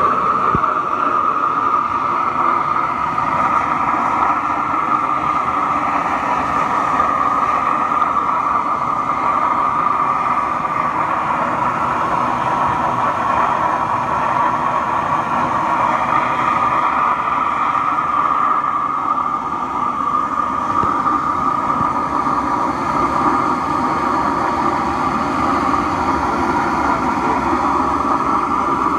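Burner of a home-built drum furnace firing steadily: a loud, even rush of flame and forced air with a constant high hum, while the furnace melts bronze and brass in the crucible.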